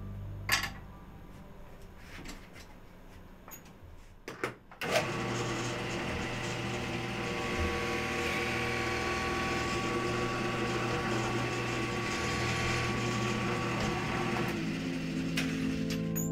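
A few light clicks of tools being handled, then, about five seconds in, an electric benchtop drill press motor starts and runs steadily, its tone shifting slightly near the end.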